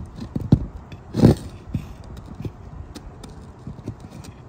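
Irregular knocks and clunks of tools and gear being handled, the loudest just over a second in, with a few lighter ones after it.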